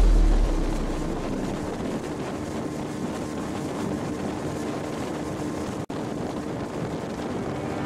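Motorboat engine running steadily, with wind buffeting the microphone. The sound cuts out for an instant about six seconds in.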